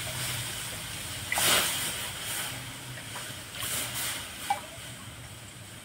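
Milk going into a hot pan on the stove, hissing in short bursts.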